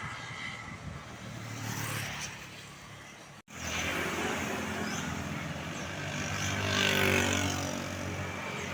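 Road traffic: vehicle engines running as vehicles pass, with a louder swell of passing noise about seven seconds in. The sound cuts out abruptly about three and a half seconds in and comes straight back.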